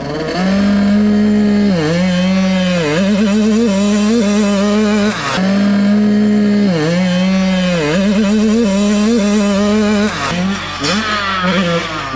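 Yamaha YZ125 two-stroke dirt bike engine with a Pro Circuit exhaust, revving high and held at a steady high pitch in stretches, with repeated quick drops and climbs in pitch as the throttle is chopped and opened again.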